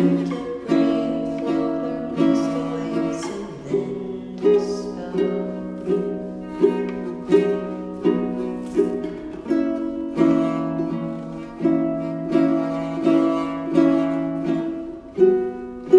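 An acoustic plucked string instrument playing a steady picked pattern of chords, with a louder attack about every 0.7 seconds.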